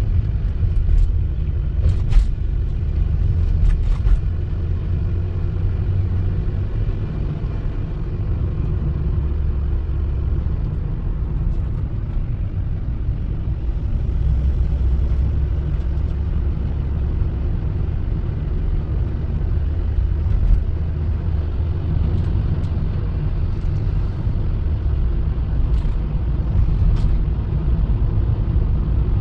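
Steady low road rumble inside a moving car, from the tyres and engine, with a few brief clicks about two and four seconds in and again near the end.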